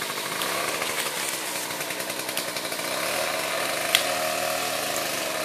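Chainsaw running steadily, with a sharp click about four seconds in.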